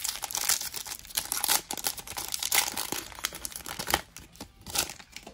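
Foil wrapper of a Pokémon trading card booster pack crinkling and tearing as it is ripped open by hand, a dense run of irregular crackles that thins out near the end.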